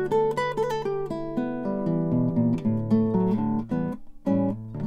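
Classical guitar played fingerstyle, a picked melody over sustained bass notes. The playing briefly thins out a little before the end, then a new chord rings out.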